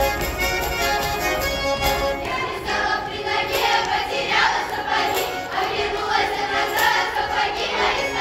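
Folk ensemble singing in chorus with accordion accompaniment. The accordion's held notes carry the start, and the voices come forward from about two and a half seconds in.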